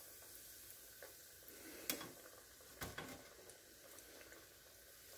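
Faint sizzle of a floured steak finger frying in hot oil, with two light clicks of metal tongs about a second apart near the middle.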